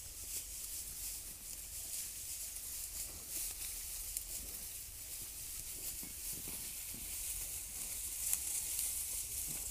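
Dry straw rustling and crackling as a young calf noses and nibbles at it, over a steady high hiss.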